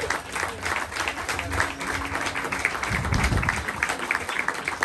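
Audience applauding: many hands clapping densely and steadily, greeting an announced award winner.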